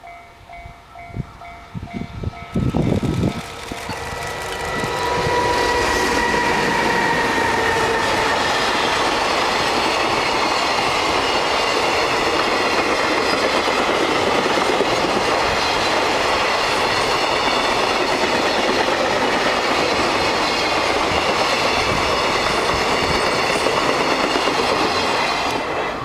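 A level-crossing bell rings at first as a JR Freight EH500 electric locomotive approaches with a long container freight train. About five seconds in, the locomotive passes with a slightly falling tone. Then comes the loud, steady rumble and clickety-clack of the container wagons, which drops away near the end.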